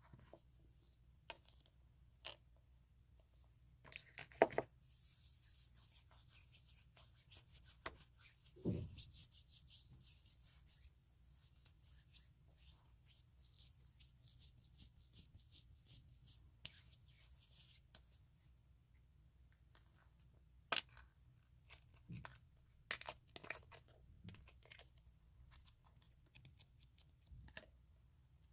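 Slime pressed and rubbed over the microphone's holes: quiet sticky crackling and scattered soft taps, with a denser stretch of crackle from about four seconds in and a short squelch dropping in pitch a few seconds later.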